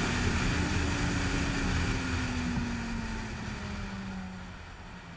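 Wind rush and the engine of a Honda CBR600RR inline-four motorcycle, heard from the rider's helmet, fading as the bike slows down. The engine note falls steadily for about four seconds and then settles low.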